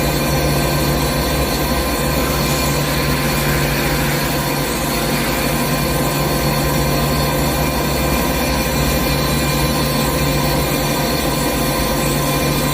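CNC lathe running steadily: a constant machine hum with several steady tones over a hiss.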